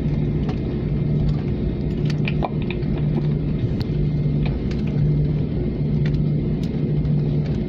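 Steady low drone of a jet airliner heard from inside the cabin, its engines and air system running on the ground before takeoff. A deep hum comes and goes every second or so, with scattered light clicks and rattles over it.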